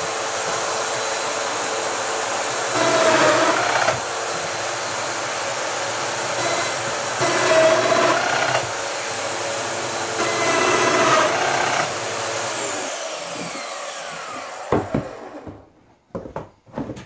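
Festool Domino joiner running with a steady high motor whine, getting louder three times as the cutter plunges into the wooden base rail to cut mortises. It is switched off about twelve seconds in and winds down with a falling whine, followed by a few knocks as the machine is set down on the bench.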